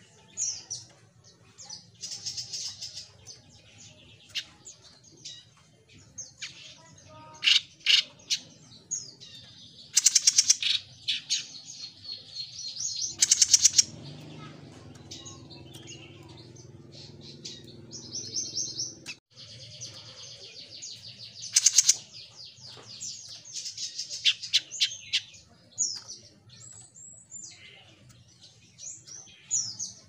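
Caged jenggot mini songbird singing vigorously in quick, varied runs of high chirps and trills, broken by several loud, harsh notes.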